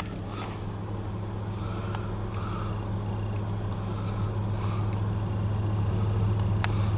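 Three GE diesel locomotives heading an approaching freight train: a steady low engine drone that grows gradually louder, with a couple of faint clicks.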